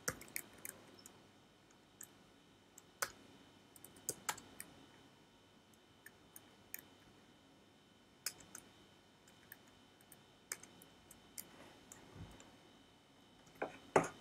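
Faint computer keyboard keystrokes typing commands, irregular single clicks and short runs with pauses between them.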